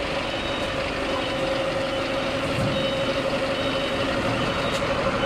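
Engine idling steadily: an even mechanical drone with a constant mid-pitched hum. Faint high beeps sound now and then.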